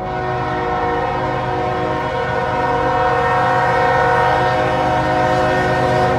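Air horn of an approaching CSX GE ES44AH freight locomotive sounding one long blast of about six seconds, several tones at once in a steady chord, starting and stopping abruptly.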